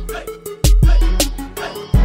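Hip hop music with a steady beat and deep bass hits.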